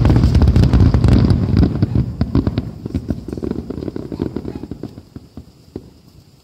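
Aerial fireworks in a closing barrage: rapid overlapping bangs and crackling, densest for about the first two seconds, then thinning to scattered pops and dying away.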